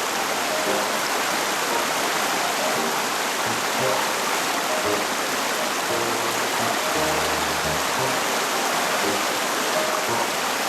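Clear mountain stream rushing steadily over rocks in a gorge, with soft background music underneath.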